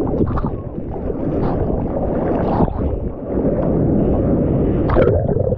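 Seawater rushing and splashing around a GoPro in its waterproof housing in the surf, mixed with wind buffeting the microphone: a loud, muffled, steady noise heavy in the low end.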